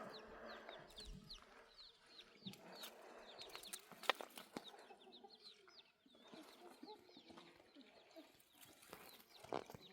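Faint, repeated short high chirps from birds, likely camp poultry, with a few sharp clicks and a soft knock near the end.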